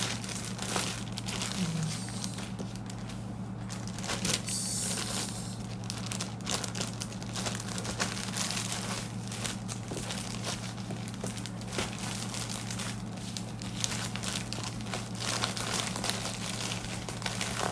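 A clear plastic bag crinkling and rustling as it is handled with clothing inside, mixed with paper label sheets rustling, in a continuous run of small crackles. A steady low hum lies underneath.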